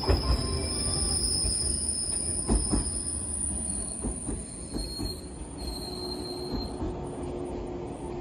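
Electric train pulling in slowly alongside the platform, its wheels and brakes squealing in high whistling tones and its wheels clicking over rail joints a few times. A low steady hum comes in about two-thirds through as it nears a stop.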